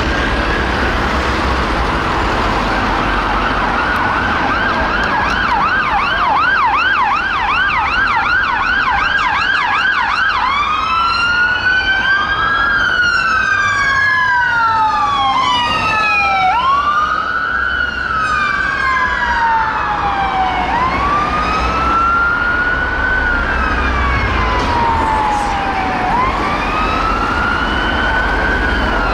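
Sirens of UK emergency vehicles responding: a slow rising-and-falling wail throughout, joined by a fast yelp about a fifth of the way in, then a second wail overlapping the first from about a third of the way in, over low engine and traffic rumble.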